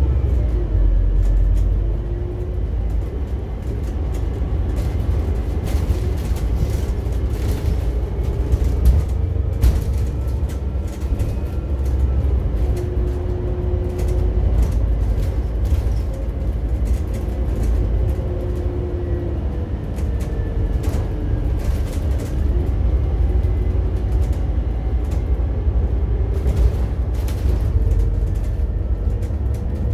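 Inside a Scania N280UD CBG double-decker bus under way, its five-cylinder compressed-biogas engine and road noise making a deep, steady rumble. A drivetrain whine rises and falls in pitch several times as the bus changes speed, with scattered rattles and knocks from the body and fittings.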